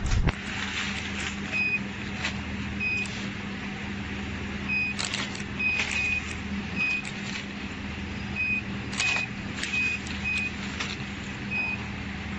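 Touchscreen control panel of a multihead weigher beeping as its screen is tapped: about a dozen short, high, identical beeps, some close together, over a steady machine hum. A sharp knock just after the start is the loudest sound.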